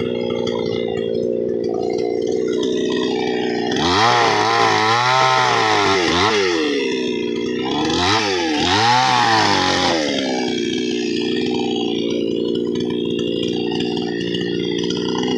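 Two-stroke chainsaw running steadily, then revving up and down several times in swells of rising and falling pitch from about four seconds in until about ten seconds, then settling back to a steady run.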